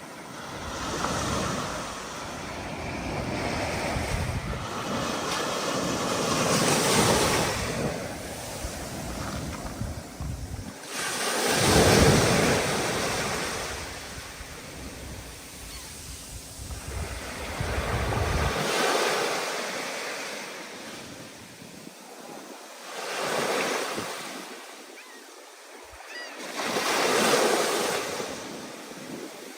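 Ocean waves breaking and washing in one after another, each swell of surf rising and falling over a few seconds, the loudest about seven and twelve seconds in, with wind on the microphone.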